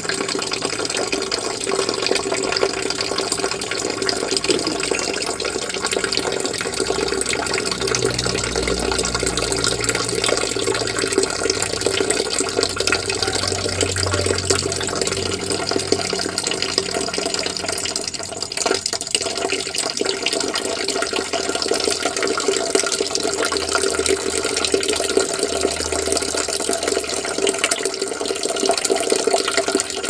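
Water running steadily from a brass tap in a thin stream, an even rushing with no breaks.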